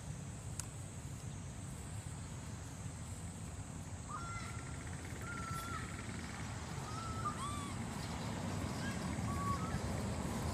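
Young macaque giving a string of short, high, clear cooing calls, some bending in pitch, starting about four seconds in, over a steady low background rumble.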